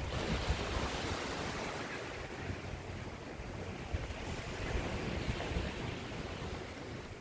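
Sea surf washing onto a beach, a steady rush that swells and eases, with wind rumbling on the microphone.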